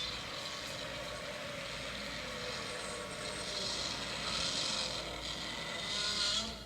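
A fan-made Godzilla Junior roar, edited together from Godzilla roar samples. It is one long rasping cry with a wavering pitch, lasting over six seconds, swelling twice toward the end before it cuts off.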